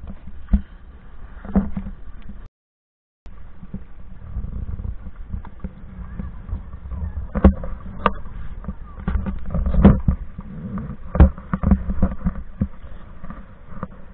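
Low rumble of wind on the action camera's microphone, with scattered clicks and knocks. The sound drops out completely for under a second about two and a half seconds in.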